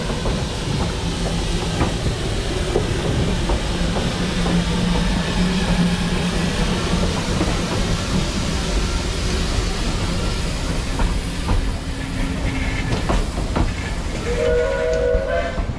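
Narrow-gauge steam locomotive working on the track close by: a loud, steady hiss of steam over the rumble and clicking of rolling wheels, with a short, slightly rising pitched tone near the end.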